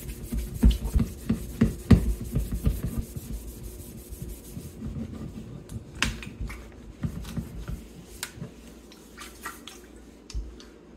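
Terry-cloth rag rubbing and wiping the outside of a stainless steel electric kettle in quick strokes that thin out after about five seconds, with a few light taps and clicks against the metal.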